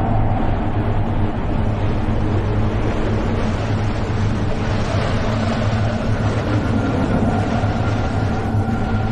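A continuous, steady low rumble of heavy machinery or a passing train. A faint held high tone comes in about halfway through.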